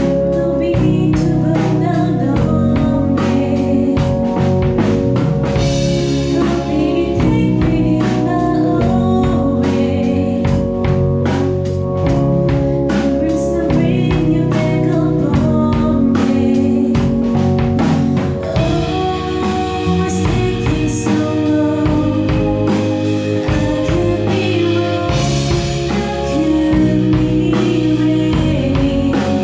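A live rock band playing a song: a female vocalist singing into a microphone over electric guitars through amplifiers, keyboard and drums keeping a steady beat.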